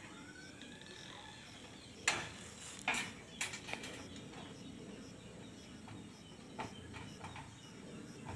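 Knocks and taps from roofers working on the roof: a quick cluster of sharp knocks about two to four seconds in, and a few lighter ones about six and a half to seven seconds in.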